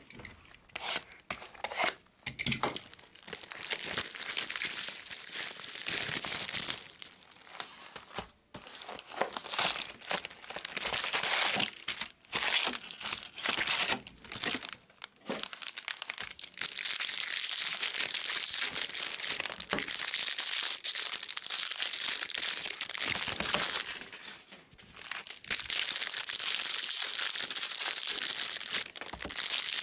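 Foil wrappers of Bowman Draft jumbo baseball card packs crinkling and tearing as the packs are ripped open by hand: an almost continuous rustle with a few brief lulls.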